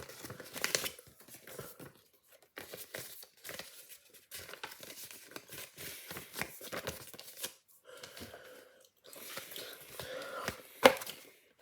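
Crinkling and tearing of One Chip Challenge chip packaging being handled, with many small crackles and one sharp click near the end.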